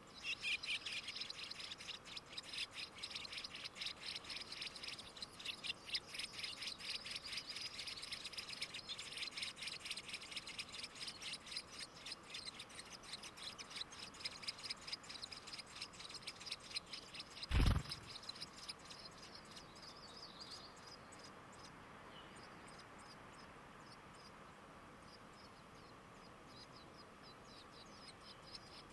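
Bicknell's thrush nestlings begging for food: rapid, high-pitched peeping calls, many a second, starting abruptly as the adult arrives at the nest and dropping to a fainter steady ticking in the last third. A single loud thump past the middle.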